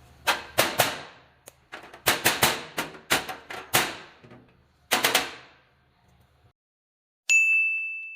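Sharp knocks in irregular groups of two to four as an ultrasonically welded plastic power adapter shell is struck repeatedly to test whether the weld holds. Near the end a single clear ringing tone sounds and slowly fades.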